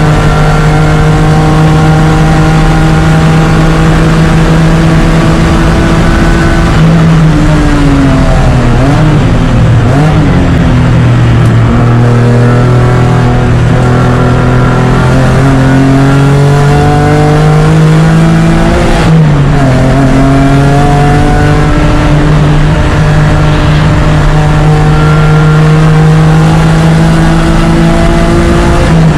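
BMW E36 race car engine at full throttle, heard from on board. About seven seconds in the pitch falls and wavers as the car slows and changes down. It then climbs steadily for several seconds, drops suddenly about nineteen seconds in at an upshift, and climbs again.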